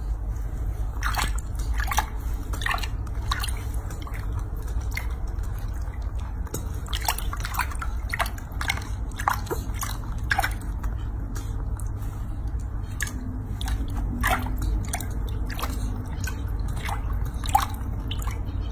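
Water in a sink basin splashing and dripping as a baby macaque is washed by hand: irregular small drips and wet clicks throughout, over a steady low hum.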